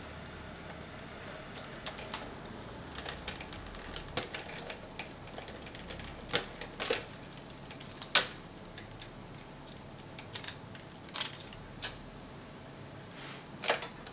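Irregular plastic clicks and knocks as wiring plugs are pulled from the circuit boards of a Sony CFS-W600 cassette boombox and a board is lifted out, the sharpest knock about eight seconds in.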